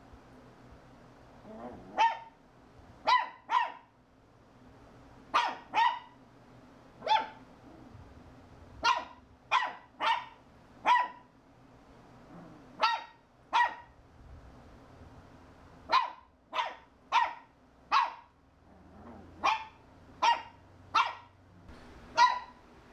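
Shih Tzu puppy barking at a stick vacuum cleaner that is switched off: about twenty short, sharp barks, singly or in quick twos and threes, a second or so apart.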